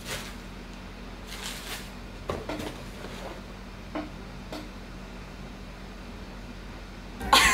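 Quiet handling of camera-box packaging: a few soft paper and cardboard rustles and light knocks as the box contents are rummaged through, over a steady low hum. A louder voice or music comes in at the very end.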